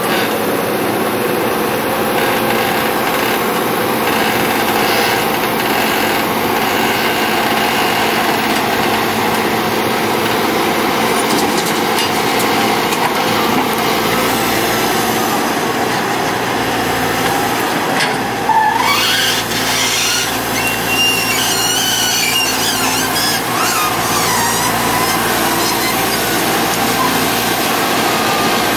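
Kobelco hydraulic excavator's diesel engine running steadily while it digs and loads soil. About two-thirds of the way in there is a sudden louder moment with a rising squeal, followed by a few high squeaks.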